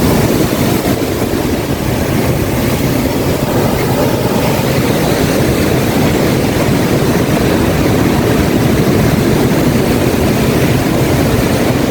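Big ocean waves breaking on the shore: a loud, steady wash of surf.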